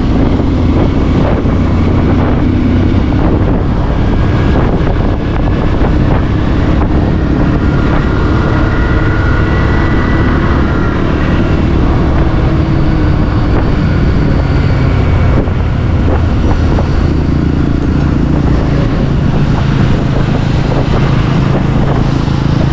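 Bajaj Pulsar 150's single-cylinder engine running steadily on the move, with heavy wind noise on the microphone.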